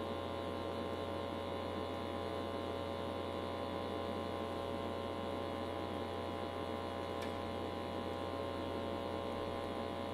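Steady electrical hum with many even overtones, unchanging in pitch and level.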